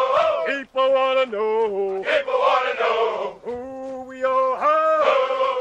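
Men's voices chanting a song, held sung notes broken into short phrases.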